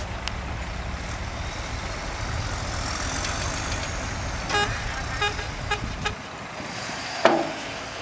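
Diesel dump truck engine running steadily as the truck tips its load. A little past halfway, about five short horn-like beeps sound. The engine rumble then drops away, and a short sharp toot comes near the end.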